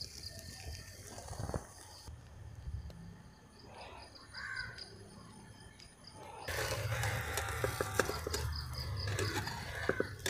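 Beaten egg frying in hot sesame oil in a small pan over a wood fire: a crackling sizzle with a low rumble, louder and busier with pops from about six and a half seconds in.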